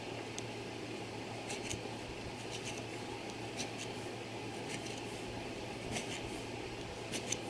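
A fine file scraping in faint, irregular short strokes over a steel pin newly soldered into a clock's brass warning wheel, taking off the excess solder. A steady low hum runs underneath.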